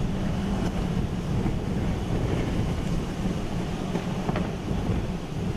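Steady low rumble with a rushing hiss, the noise of a car and storm wind heard from inside the car's cabin, with one short tick about four seconds in.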